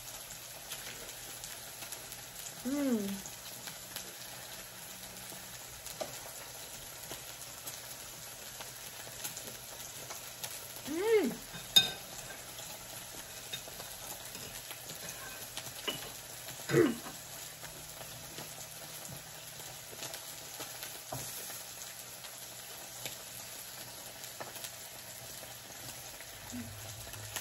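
Meat and shrimp sizzling steadily on an electric griddle. Three short hums break in, and there is one sharp click near the middle.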